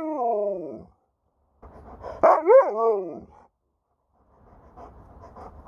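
Alaskan malamute 'talking back' with drawn-out, wavering woo-woo vocalisations. The first call trails off and falls in pitch at the start; a second call comes about two seconds in and rises then falls.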